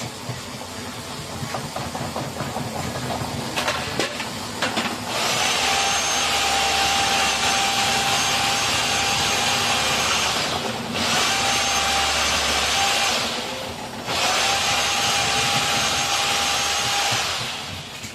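LG washing machine running with a paper KFC bag in the drum: a loud scraping, rubbing noise with a faint steady whine, in three long stretches with short breaks between. Softer rattling and a few knocks come before it.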